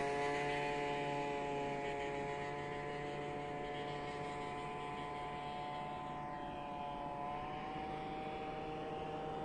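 Jet airliner's engines whining as the aircraft moves away: several steady high tones over a low hum, slowly fading.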